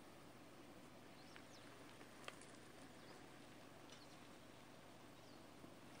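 Near silence: faint outdoor ambience with a few faint, distant bird chirps and one small click about two seconds in.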